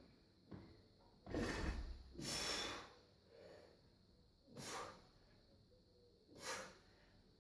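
A weightlifter's heavy breathing during a barbell lift: several sharp, noisy breaths through nose and mouth, the loudest between about one and three seconds in, then two shorter ones later.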